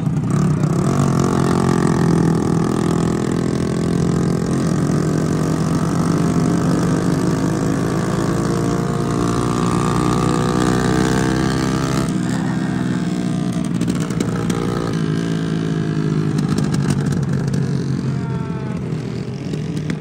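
Motorcycle engine running as the bike rides along, its pitch climbing gradually over about twelve seconds, then easing off.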